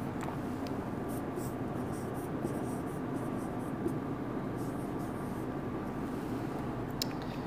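Marker pen scratching across a whiteboard as handwritten letters are written, in two spells of short strokes, about a second in and again about five seconds in, over a steady background hiss; a sharp tick near the end.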